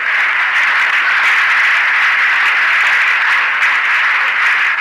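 Audience applauding, a dense, steady clapping that is louder than the speech around it.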